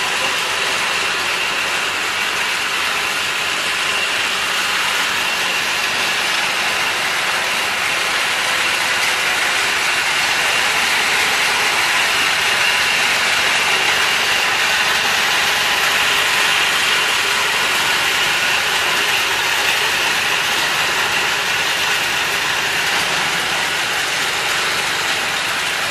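Palm nut cracking and sieving machinery running steadily: a motor-driven nut cracker and a rotating mesh sieve drum make a loud, constant mechanical din.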